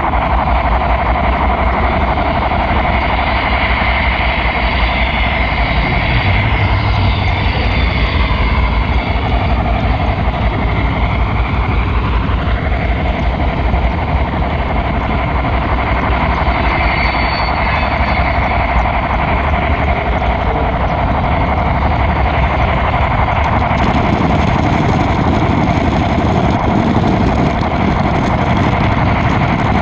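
Steady rolling rumble and rattle of an HO scale model train on its track, picked up by a camera riding on a flatcar pushed by the locomotive, with a faint whine that dips and rises in pitch in the first half.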